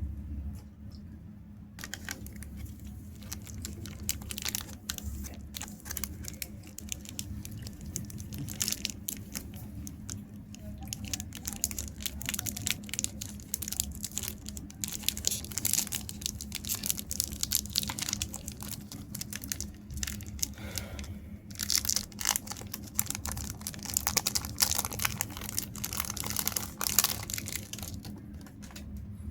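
Chocolate wrappers being crinkled and torn open by hand: dense, irregular crackling that starts about two seconds in and stops near the end. A steady low hum runs underneath.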